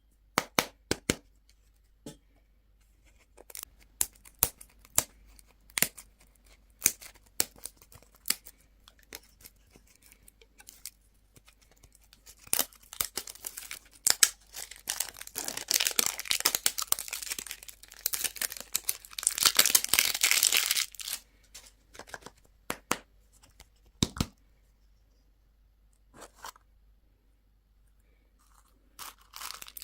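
Candy wrappers being handled and torn open: scattered crinkles and clicks at first, then about halfway through a long stretch of steady tearing and crinkling of wrapper material, followed by a few last crinkles.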